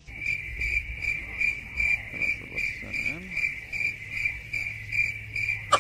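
Cricket chirping: a steady high trill pulsing about four to five times a second, cutting off suddenly at the end.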